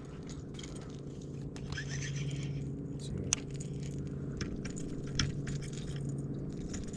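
Baitcasting reel being cranked to retrieve a lure, with scattered sharp clicks and light scrapes of hands and rod handling, over a steady low hum.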